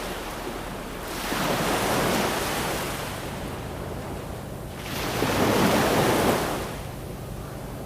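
Ocean waves breaking and washing in: one surge about a second in and a louder one about five seconds in, each swelling and then fading back.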